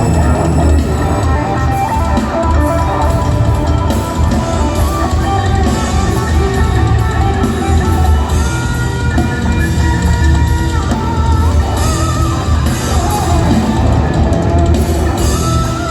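Live rock band playing loud: electric guitar over bass and drum kit.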